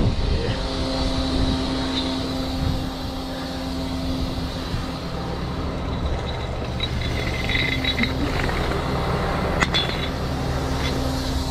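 Heavy rotator wrecker's diesel engine running steadily, with a low steady hum, during a recovery with its boom and winch cable rigged. A single sharp click sounds near the end.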